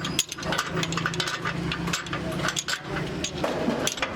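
Irregular metal-on-metal clinks and knocks from leaf-spring repair work, a few a second, over a steady low hum.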